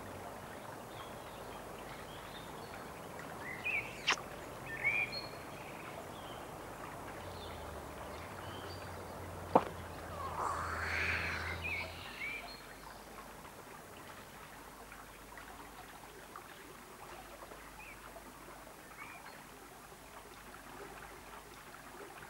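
Steady faint hiss with a few short, high bird chirps scattered through. Two sharp clicks come a few seconds in and about halfway through, and a brief rising, noisy sound follows just after the second click.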